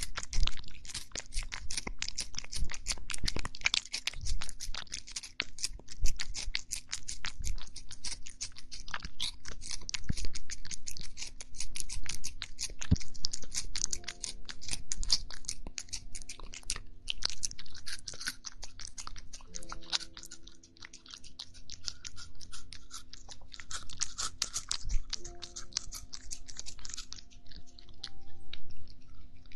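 A cat chewing crunchy food close to the microphone: a dense, rapid run of crunches and bites. Soft background music with held notes comes in about halfway through.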